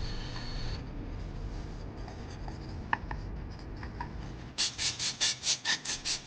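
Hand tool scraping aged, brittle waterproof adhesive off the edge of an iPhone 12 Pro's stainless steel frame. A few light clicks and scratches come first, then a quick run of about a dozen short scraping strokes, roughly five a second, near the end.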